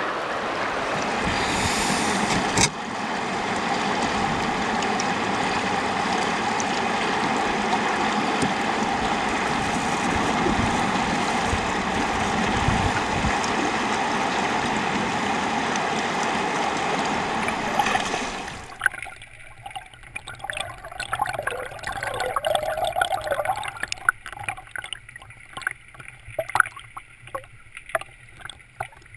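Shallow river flowing steadily over gravel. About two-thirds of the way through it gives way to a muffled underwater sound, as heard through a camera's waterproof housing, with scattered clicks and knocks.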